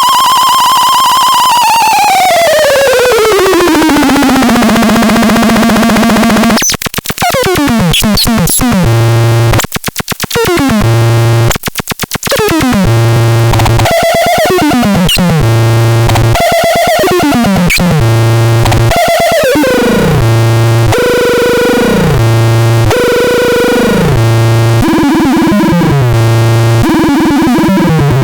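Talpalax electronic instrument producing synthesized tones. A loud buzzy tone glides steadily down in pitch over the first few seconds, then breaks into stuttering, choppy bursts. After that comes a repeating pattern of quick falling pitch sweeps over a pulsing low note, about every two seconds.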